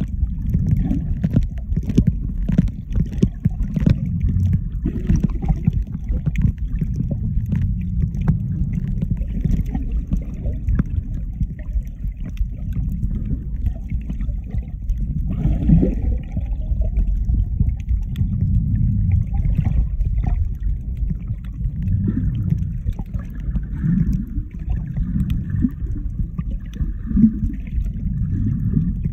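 Muffled underwater noise picked up by a submerged phone: a steady low rumble of moving water with scattered faint clicks and occasional bubbly gurgles.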